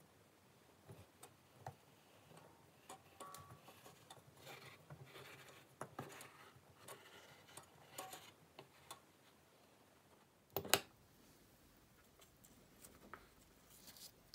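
Faint rustling of plastic protective film and small clicks and scrapes of a watch case being handled in a metal lapping vise, with one sharper knock about ten and a half seconds in.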